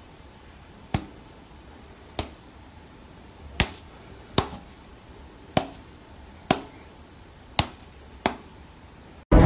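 About eight sharp clicks at uneven intervals of roughly a second, from a person's hand playing with a Bengal cat that stands and swats at it, over quiet room tone. Loud music cuts in near the end.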